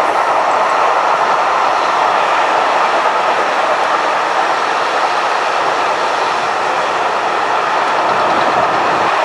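Container freight train's wagons rolling past, a steady noise of steel wheels running on the rails.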